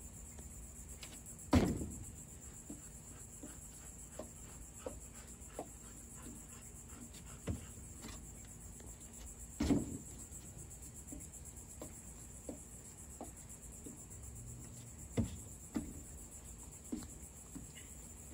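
Two heavy thumps of feet landing from broad jumps on a wooden deck, about a second and a half in and near ten seconds in, with lighter footfalls and knocks on the boards in between and after. A steady high drone of insects runs under it all.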